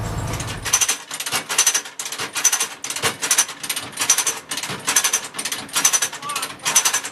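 Hand brake on a Budd RDC being pumped: its ratchet clanks in a steady rhythm of about two or three strokes a second. A low diesel hum cuts off in the first second.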